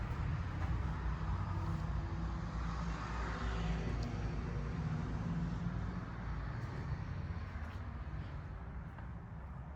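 Road traffic: a vehicle passes, swelling and fading a few seconds in, over a steady low rumble.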